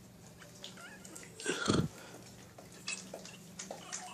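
A pit bull puppy gives one short whimper about a second and a half in, amid faint wet sounds of puppies licking and mouthing a hand.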